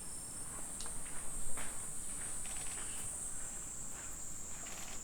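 A steady high-pitched insect trill, dropping slightly in pitch about three seconds in, with a few scattered soft clicks or rustles.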